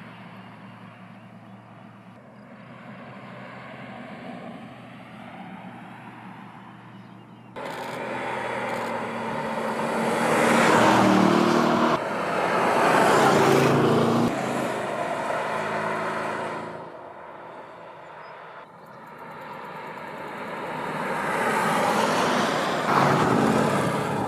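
Land Rover Defender's 5.0-litre supercharged V8 driving by: a low steady engine hum at first, then after a sudden cut about a third of the way in, engine and tyre noise grow loud as it approaches and passes, fade, and build again near the end.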